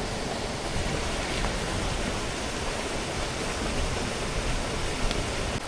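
Steady rushing water noise, an even hiss with nothing standing out.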